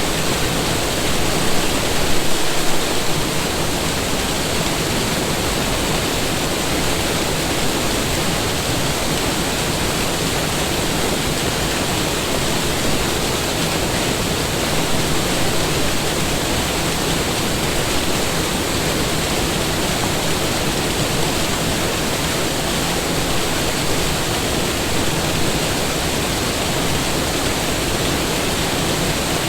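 Waterfall with a heavy flow of water, rushing steadily; briefly a little louder about two seconds in.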